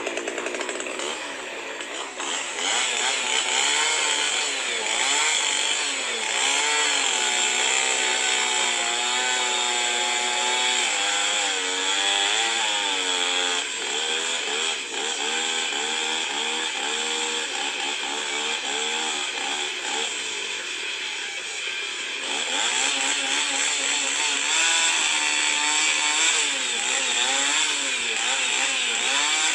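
Chainsaw engine running continuously and being revved up and down over and over, its pitch rising and falling about once a second.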